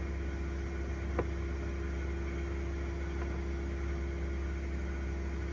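Vehicle engine idling steadily, with one light click about a second in.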